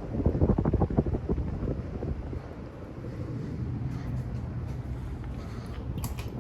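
SMC UF52 ceiling fan running, its air stream buffeting the microphone in gusts for the first couple of seconds, then a steadier low hum.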